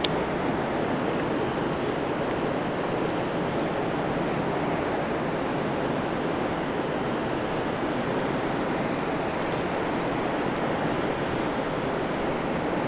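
Steady rush of a large, fast-flowing river's current, with rapids downstream.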